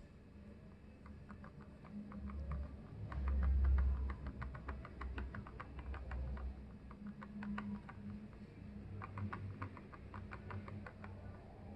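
Focus ring of a Canon 35mm f/1.4L II lens being handled and turned, giving off rapid clicks and ticks in two runs, over a low rumble of fingers on the lens. The owner calls it an annoying sound on touching the ring and is unsure whether it is normal.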